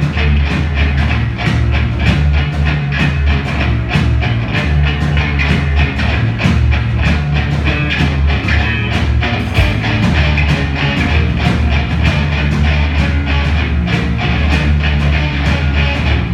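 Live rock band playing loudly: electric guitar over a drum kit keeping a steady beat.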